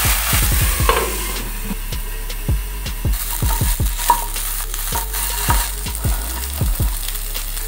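Vegetables being stir-fried in a wok: a steady sizzle, with a spatula knocking and scraping against the pan many times at an uneven pace.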